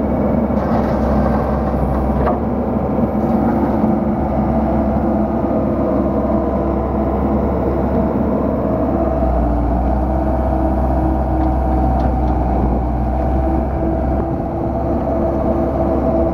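Diesel engine of a Komatsu PC78MR-6 midi excavator running steadily, its tone shifting slightly about nine seconds in.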